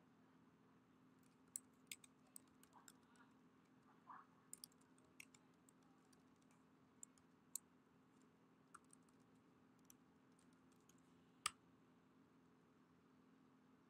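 Typing on a computer keyboard: irregular, scattered key clicks, with one louder click near the end.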